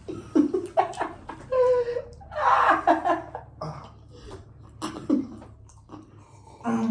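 People laughing and chuckling in short bursts, mixed with a little indistinct talk.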